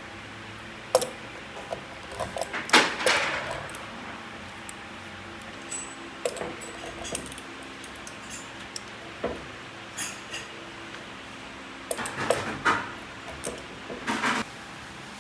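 Kitchen handling sounds: scattered clinks, knocks and rattles of utensils and cookware being handled, in busy clusters about a second in, around three seconds and again near the end.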